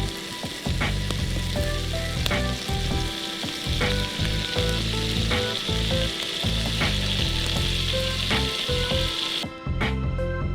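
Background music with a steady beat over a steady sizzling hiss. The hiss stops about nine and a half seconds in.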